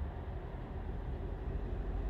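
Steady low rumble of distant road traffic, with no single passing vehicle standing out.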